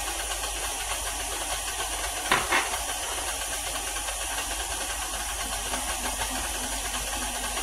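KitchenAid Classic stand mixer's motor running steadily as its beater works creamed cake batter in the steel bowl, with a couple of brief light clicks about two and a half seconds in.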